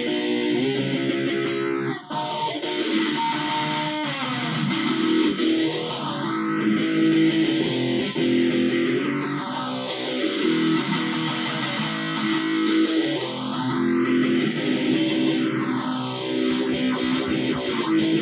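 Electric guitar playing sustained notes through a slow sweeping modulation effect. The tone swooshes up and down in a steady cycle, once about every seven and a half seconds.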